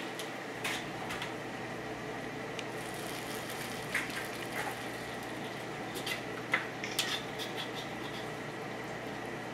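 A metal ladle clinking against a wok and a plate as food is served, a handful of light knocks spread over several seconds, over a steady kitchen background hum.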